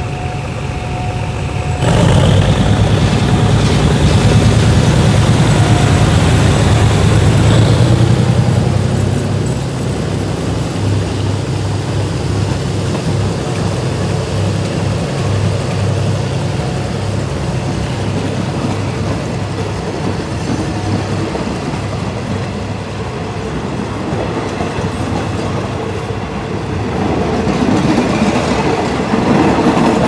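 A GEK-class diesel locomotive's engine opens up loudly about two seconds in as the train pulls away. Its passenger coaches then roll past, with the wheels clacking rhythmically over the rail joints.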